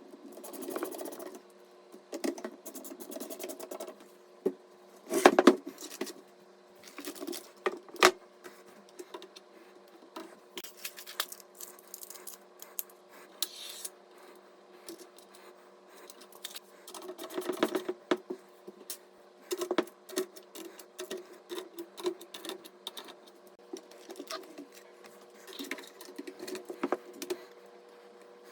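Hands handling PC parts and small hardware during assembly: scattered clicks, taps and rattles, with two sharper knocks about five and eight seconds in and a busier run of clicking later, over a faint steady hum.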